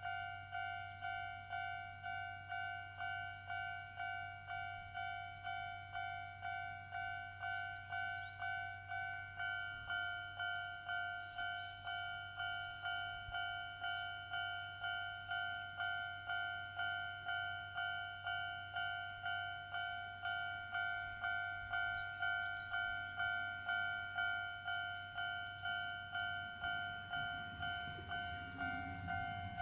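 Japanese level-crossing alarm ringing its old standard electronic bell tone, a clear ding repeated a little over twice a second with each strike fading. In the last few seconds the low rumble of an approaching Jōmō Electric Railway 800 series train (ex-Tokyo Metro 03 series) rises underneath.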